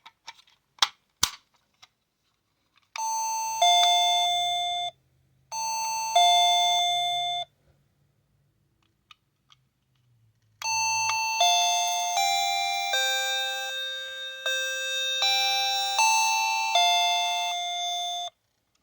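Battery-powered wireless doorbell's electronic chime, heard through its small speaker. After a few clicks of handling, it plays a two-note falling ding-dong twice, then a longer chime tune of about a dozen notes.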